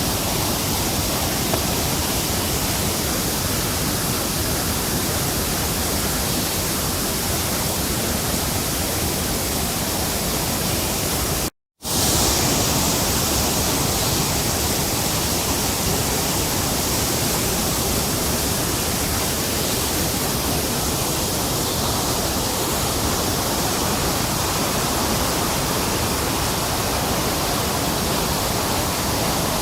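Small hillside waterfall, swollen with rainwater, pouring with a steady, dense rush of water. The sound cuts out for a split second about a third of the way in, then carries on slightly brighter.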